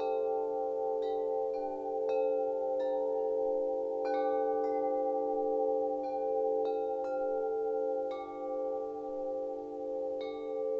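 Wind chimes ringing, a new note struck about once or twice a second, the notes ringing on and overlapping.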